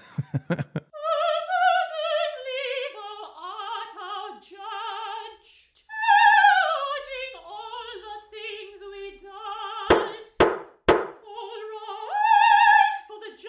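A single high voice singing in an operatic style, holding notes with wide vibrato. Three short sharp knocks come about ten seconds in.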